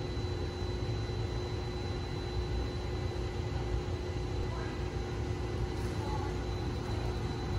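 Steady low rumble with a constant faint hum, the background of a large indoor hall, and two faint short calls a little past the middle.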